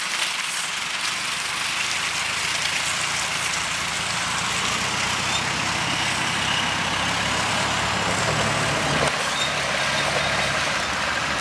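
A first-generation Land Rover Discovery's engine pulling as it drives through mud and up a muddy bank, its note growing stronger about halfway through, under a steady hiss.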